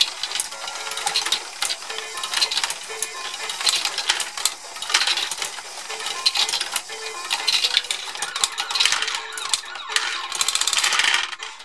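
Lego Boost Great Ball Contraption pachinko module running: small plastic balls clicking and clattering through the pins and tracks, over the steady mechanical whir of the Lego motor driving the chain lift, with a denser rattle of balls about ten seconds in.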